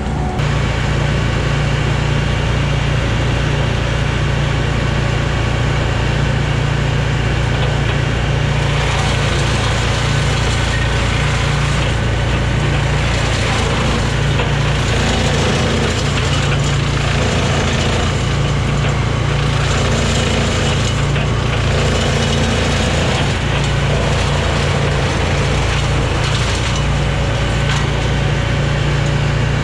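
Brush Bandit 280XP woodchipper running steadily at working speed while chipping small pine trees, the wood crunching and cracking as it is fed through; the chipping gets heavier about nine seconds in.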